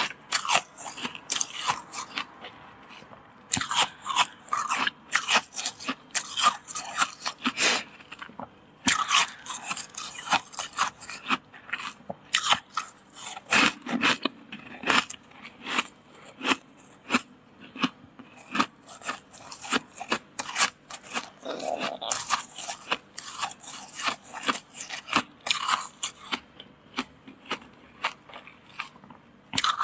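Crunching of thick, powdery freezer frost: quick runs of sharp crunches with short pauses between.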